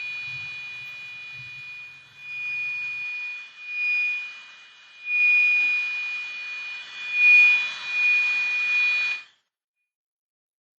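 Passive buzzer driven by an Arduino's PWM pin, sounding a steady high electronic buzz that swells and fades in loudness as the potentiometer knob is turned. It cuts off suddenly about nine seconds in.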